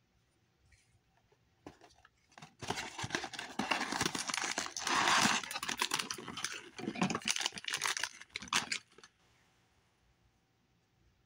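Handling noise: about six seconds of rustling with many small clicks and knocks as plush clip-on toys with plastic hook clips are moved and picked up.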